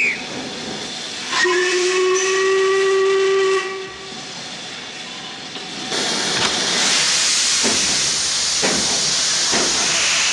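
Steam locomotive whistle giving one steady blast of about two seconds, a chord of several tones. From about six seconds in comes a loud hiss of escaping steam, broken by a few heavy puffs about a second apart as the engine gets under way.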